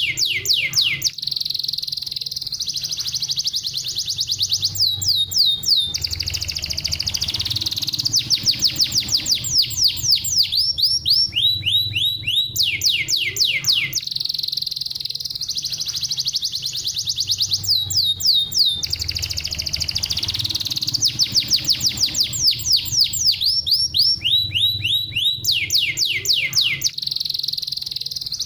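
Domestic canary singing continuously: fast trills of rapidly repeated sweeping notes alternate with a high, unbroken warble, the same sequence recurring about every seven seconds. A low steady hum runs underneath.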